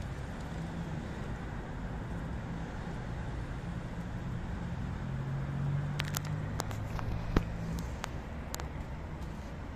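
Calico cat eating chunks of wet fish food off a paper plate: a run of small, sharp wet clicks of chewing and licking from about six seconds in, one near the middle of the run the loudest, over a steady low rumble of traffic.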